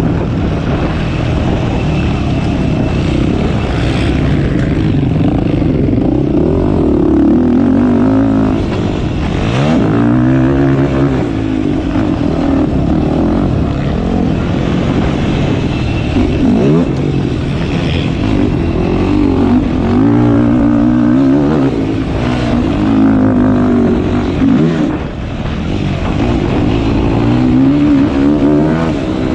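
Yamaha YFZ450R quad's single-cylinder four-stroke engine being ridden hard, its pitch rising and falling over and over as the throttle is opened and closed and the gears change.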